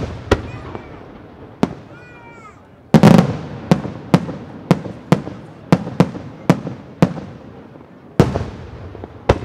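Aerial firework shells bursting overhead, a string of sharp bangs each trailed by an echo. The heaviest burst comes about three seconds in, followed by bangs about twice a second, then two more spaced further apart near the end.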